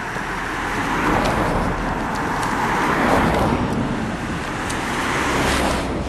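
Cars driving past close by on a road, their tyre and engine noise rising to a peak about halfway and swelling again before fading near the end.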